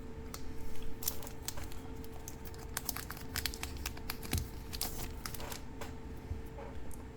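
Trading cards and booster-pack wrappers being handled: a run of light crinkles and sharp little clicks, bunched about a second in and again in the middle.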